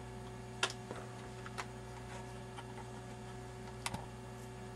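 Steady electrical mains hum with three light computer keyboard key clicks, the first about half a second in and the last near the end.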